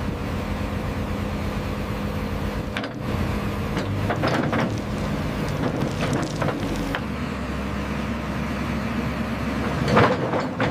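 Crawler excavator's engine running steadily while its steel tracks clank and knock as it moves over gravel and onto a trailer's steel ramps, with the loudest knock near the end.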